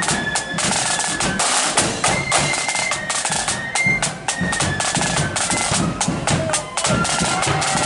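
Marching flute band playing: snare drums beating a dense, driving rhythm with a bass drum underneath, and flutes carrying a high melody over the drums.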